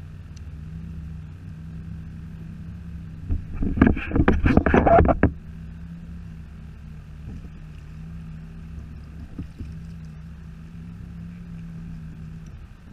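A loud burst of rapid knocks and rattles lasting about two seconds, a few seconds in, as fishing gear is handled against the plastic hull of a sit-on-top kayak. Behind it runs a steady low hum with water and wind noise.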